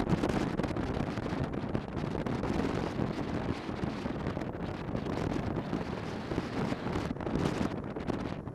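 Wind buffeting the microphone on a moving motorcycle, an uneven rushing noise over the bike's engine running underneath.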